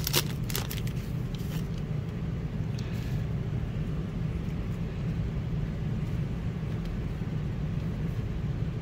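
Foil trading card pack wrapper crinkling as it is torn open and the cards are pulled out, mostly in the first second, with a few lighter rustles a couple of seconds later. A steady low hum runs underneath.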